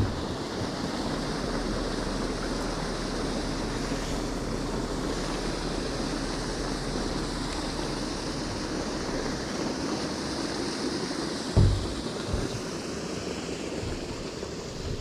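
A boat under way across the water: a steady rush of wind on the microphone and water along the hull over a low motor hum, with a single low thump about eleven and a half seconds in.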